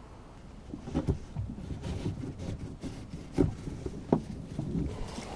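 Knocks and low rumbling handling noise in a rowboat, with three sharper knocks against the boat, the first about a second in and two more near the end.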